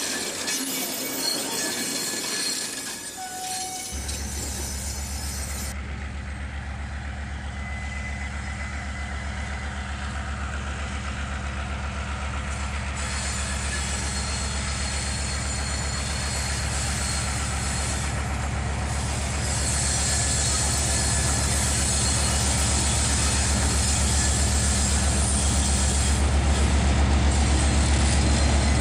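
A train rolling past close by for the first few seconds, then diesel locomotive A39, a CIÉ A class, approaching slowly with its coaches, its engine's steady low hum growing gradually louder.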